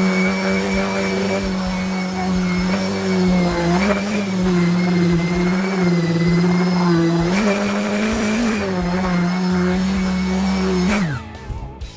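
Makita random orbital sander running on an end-grain hardwood cutting board, a steady motor hum whose pitch rises briefly twice. It is switched off about eleven seconds in and winds down.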